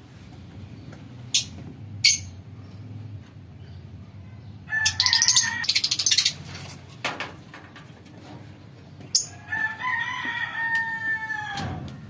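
A rooster crowing twice, the second crow longer and falling in pitch at its end. Short, sharp chirps of lovebirds come before and between the crows.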